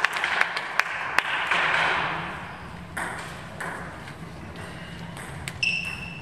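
Table tennis balls clicking: a quick run of clicks, about three a second, in the first second, then single clicks now and then. A short, high ringing ping sounds near the end.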